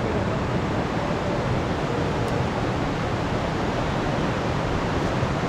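Steady rushing of fast-flowing river water, an even, unbroken wash of noise.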